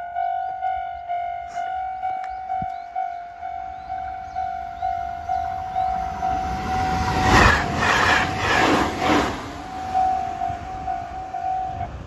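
Railway level-crossing warning bell ringing in steady repeated dings, about three a second. About seven seconds in, the limited express Shiokaze passes with a loud rush and a quick run of wheel clacks over the rail joints. The bell cuts off just before the end.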